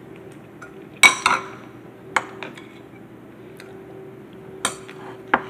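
Metal spoon clinking against a bowl while eating, in about six sharp strikes. The loudest pair comes about a second in, with more near the middle and toward the end.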